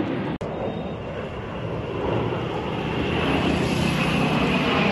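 Jet engines of a formation of BAE Hawk jet trainers flying overhead, a steady noisy drone that grows louder over the last couple of seconds. The sound cuts out for an instant just under half a second in.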